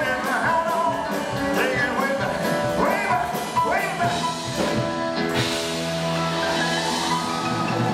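Live rock-and-roll band with a male singer: the vocal line runs over guitar and keyboards for the first half, then the voice drops out and the band holds a long chord.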